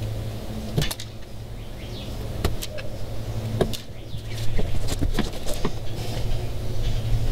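Small clicks, taps and handling noises from hand wiring at a plastic distribution box: wires being handled, stripped and joined with wire nuts. A steady low hum runs underneath.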